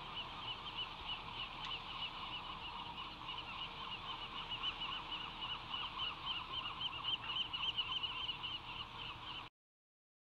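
Many seabirds calling at once: a steady stream of short, quick, overlapping cries that grows busier toward the end, then cuts off suddenly.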